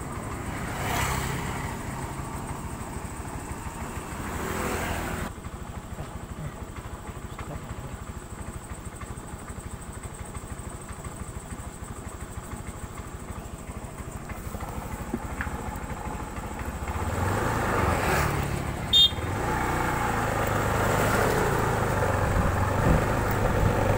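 Motorcycle engine idling with a steady fine pulse. It runs louder for the last several seconds as the bike moves off, with a brief high beep partway through that louder stretch.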